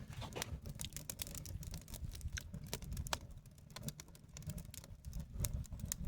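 Small campfire of leaves and twigs crackling, with many irregular sharp pops and clicks over a steady low rumble.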